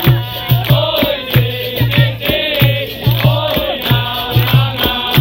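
Capoeira roda music: voices singing a chant together over a steady drum beat of about two strokes a second, with shaken and struck percussion.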